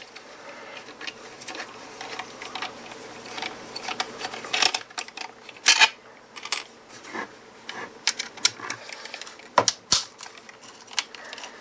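Screws being worked out of a plastic power-tool battery case with a screwdriver: irregular small clicks and ticks of the bit and plastic, with a few louder sharp clicks about five, six and ten seconds in.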